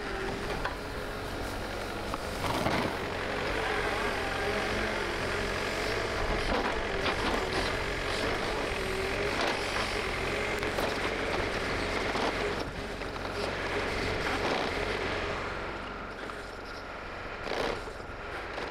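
A heavy vehicle's engine running, its pitch wavering up and down, with scattered knocks and clatter.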